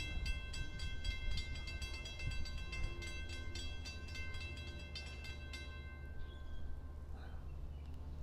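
Railroad grade-crossing warning bell ringing in a fast, even series of strikes as the crossing gates lower, then stopping about five and a half seconds in. A steady low hum lies underneath.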